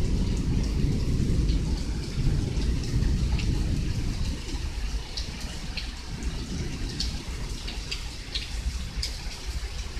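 Heavy rain pouring down steadily, with a low rumble that dies away over the first few seconds. Sharp ticks of drops landing close by come now and then in the second half.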